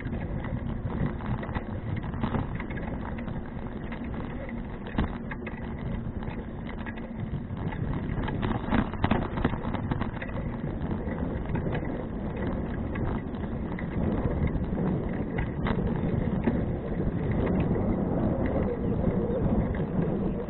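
Bicycle riding noise from a 2012 Fuji Touring bike: steady tyre and wind rumble with frequent small clicks and rattles over bumps, getting louder in the second half.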